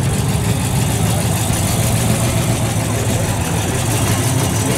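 A car engine idling steadily, with a low, even note that does not rise or fall.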